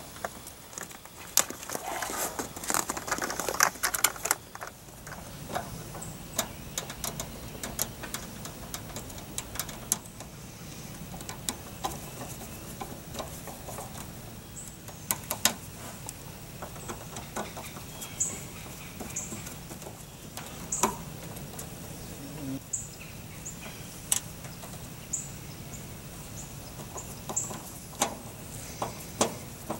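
Screwdriver and hand work on plastic and metal parts: a dense run of scraping and clicking about two to four seconds in as screws are driven into a plastic line set cover, then scattered light clicks and taps while wires are screwed onto an outdoor unit's terminal block.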